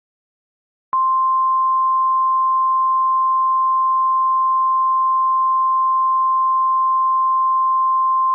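A single steady alert tone, NOAA Weather Radio's 1050 Hz warning alarm tone, starting about a second in, held for about seven and a half seconds, then cutting off. It is the attention signal that comes before a new weather warning is read.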